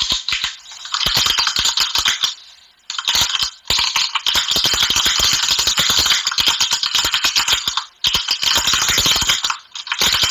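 Typing sound effect: fast runs of key clicks, many a second, broken by a few short pauses.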